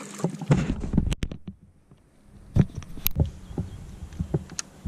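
Scattered knocks and low thumps from a fishing kayak, with a few sharp clicks, and a near-quiet stretch about one and a half to two and a half seconds in.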